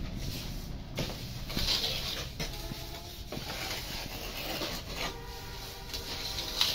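Wet cement mortar being slapped and patted by hand onto a pipe mould, a series of irregular soft slaps.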